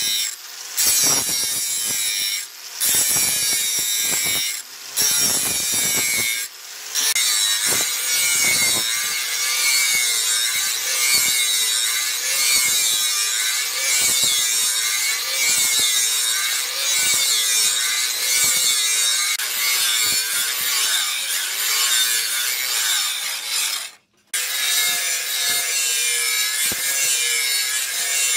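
Electric angle grinder with a flap disc grinding a steel blade: a steady, dense, high grinding hiss over the motor's whine, which wavers as the disc is pressed on. It breaks off briefly several times in the first seven seconds and cuts out for an instant near the end.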